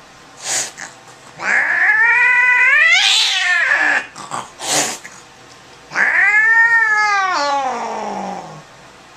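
Angry tabby cat, held down by the scruff, yowling twice in long drawn-out calls that rise and then fall in pitch. Short hisses come just before the first yowl and between the two.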